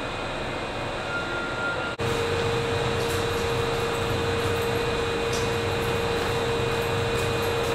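Steady mechanical hum of a subway station's background machinery, with a constant mid-pitched tone running through it. About two seconds in the sound changes abruptly, becoming a little louder with a stronger steady tone.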